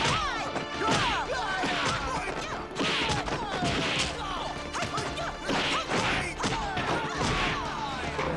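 Kung fu film fight sound effects: a rapid series of punch and kick hits with swishing robes, the heavier hits coming roughly once a second, over music.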